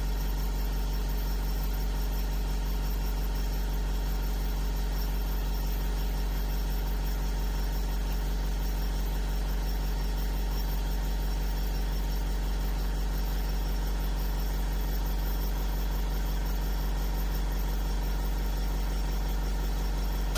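Steady, deep machine hum with several fainter steady tones above it, unchanging in pitch and level.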